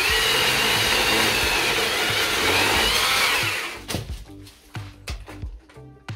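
Chainsaw running at full throttle for about three and a half seconds with a high whine, then dropping away. Background music plays under it.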